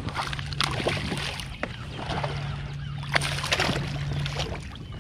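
Water splashing and sloshing around a kayak in two spells, over a steady low hum that stops near the end.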